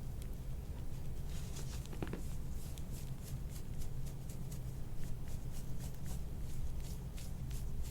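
Quick, repeated soft rubbing strokes on skin during soft-tissue work on a patient's back, starting about a second and a half in, over a steady low hum.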